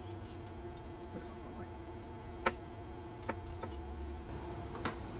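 Knife slicing smoked ribeye on a wooden cutting board, the blade knocking on the board four times, loudest about halfway through, over a steady low hum.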